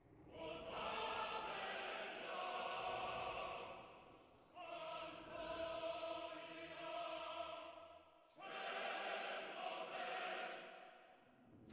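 Choral intro music: a choir holding long chords in three swells, each fading away before the next comes in.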